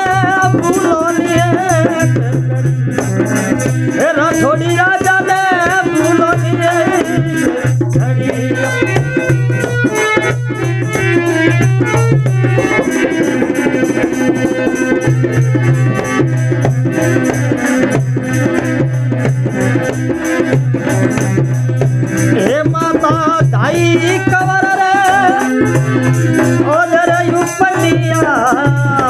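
Rajasthani folk devotional music: dholak drumming with the jingling of a khanjari (small frame tambourine), over a steady low drone, with a wavering melody line that comes in at the start, again around four to seven seconds in, and again near the end.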